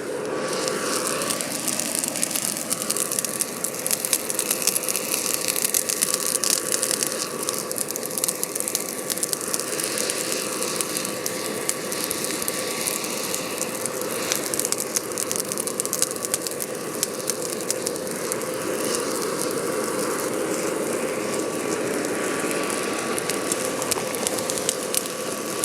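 Charcoal fire in a blown hearth furnace crackling densely and continuously over a steady whine of the air blast feeding the tuyere, while a charge of bloomery iron melts down into steel.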